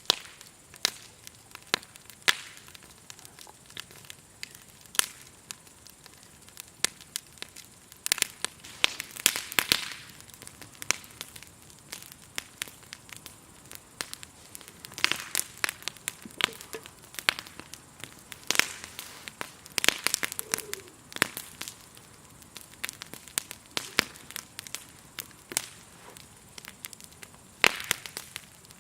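Wood campfire burning and crackling, with irregular sharp pops and snaps that come in denser clusters now and then. Under it runs a faint, steady, high chirring of grasshoppers.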